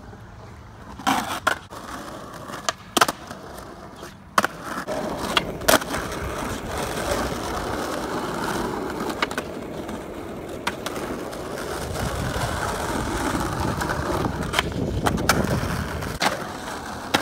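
Skateboard wheels rolling over concrete and then street asphalt, with several sharp clacks of the board in the first few seconds, followed by a steady rolling rumble that grows louder toward the end.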